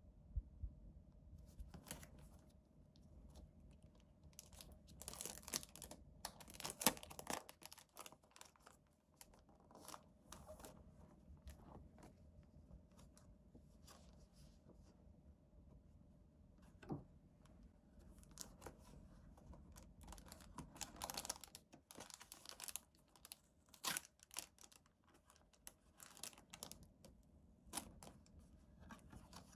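Clear plastic packaging of a pack of sticker flakes crinkling and tearing as it is opened by hand, in irregular crackles and rustles, loudest about five to seven seconds in and again about twenty-one to twenty-four seconds in.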